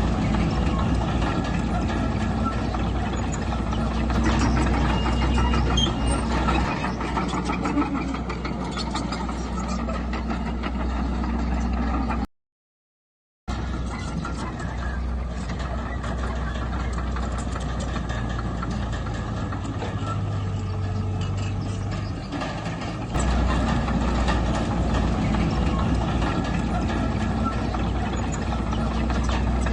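Heavy earthmoving machinery's diesel engine running steadily with a deep hum, under a continual metallic clatter. The sound drops out completely for about a second near the middle.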